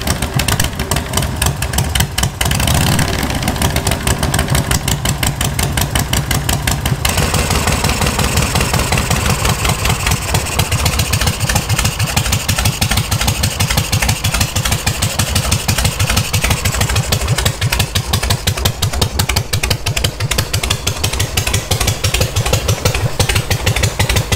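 Harley-Davidson Shovelhead air-cooled V-twin, just kick-started on a freshly rebuilt S&S Super E carburetor, running cold and not yet tuned. It runs busier for the first several seconds, then settles into a steady idle about seven seconds in.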